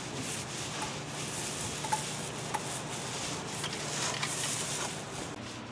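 Paint roller rolling two-part epoxy barrier coat onto a fibreglass boat hull: a soft, sticky hiss that swells and fades with the strokes, with a few faint clicks.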